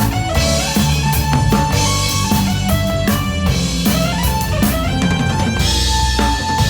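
A band playing an instrumental passage: drum kit with steady beats and cymbals, bass guitar, and a guitar, under a lead melody of held notes that step up and down.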